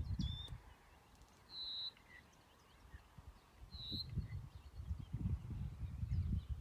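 Short high bird chirps: a quick rising one near the start, then two brief notes about two seconds apart. An irregular low rumble builds under them from about four seconds in.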